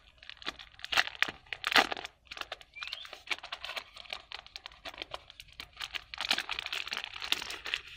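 A clear plastic bag crinkling and crackling as hands open it and slide out a stack of cardboard game pieces, with sharp crackles throughout, loudest about one to two seconds in and again near the end.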